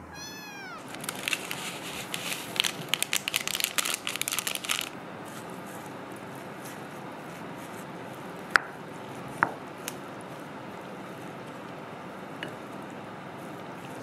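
A white kitten meows once right at the start. It is followed by a few seconds of rapid clicking and scraping, then two sharp clicks against a faint steady hiss.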